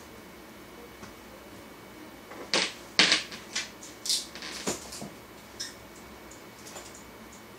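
A run of irregular sharp clicks and taps, like keys or small objects handled on a bench, bunched from about two and a half to five seconds in with the loudest two close together, then a few fainter ones, over a steady faint hiss.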